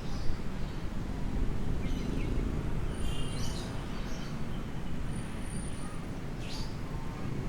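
A steady low rumble with a few short, high bird chirps over it.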